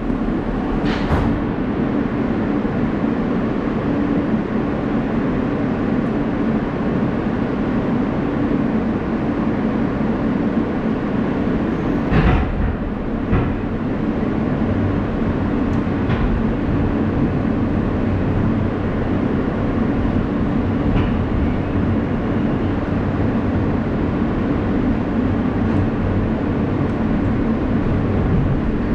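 Inside a moving R160A subway car: the steady rumble of the train running on the rails, with a few sharp clicks along the way.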